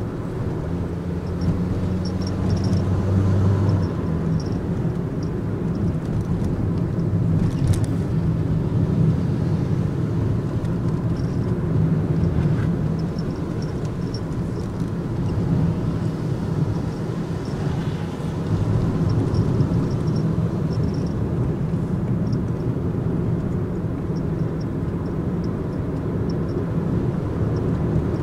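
Nissan NV200 van driving, its engine and tyre noise heard from inside the cabin as a steady low drone with road rumble.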